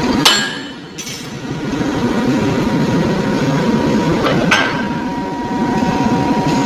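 Metal-forming machinery in a workshop: two sharp metal-on-metal strikes about four seconds apart over a steady machine hum, with a ringing tone after them.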